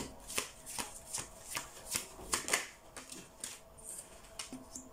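A tarot deck being shuffled by hand, the cards flicking and slapping together in a quick run of crisp strokes, about two or three a second, that thins out and softens after about three seconds.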